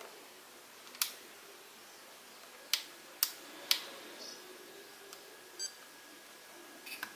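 FlySky FS-i6X radio transmitter being worked by hand: four sharp clicks of its buttons and controls in the first four seconds, then a few short high electronic beeps from the transmitter as its menu is stepped through.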